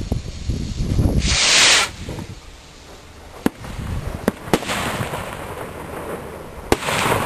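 Garden fireworks going off: a loud hissing whoosh about a second and a half in, then four sharp bangs spread over the next few seconds, and another short hiss near the end.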